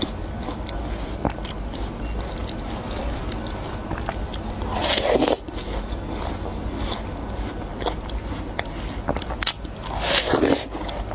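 Close-miked bites into juicy, crunchy watermelon: two loud wet crunches about five seconds apart, with chewing and small wet clicks between them.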